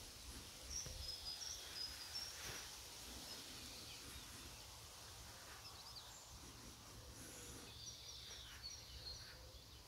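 Faint birdsong: short, high chirps from small birds in the first couple of seconds and again near the end, over a low steady rumble.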